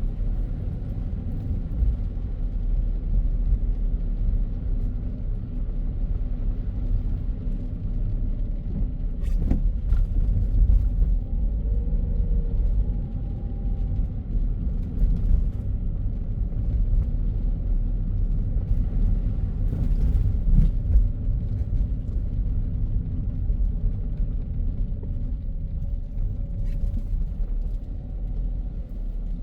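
A car driving along a city road: a steady low rumble of engine and road noise, with a few faint clicks.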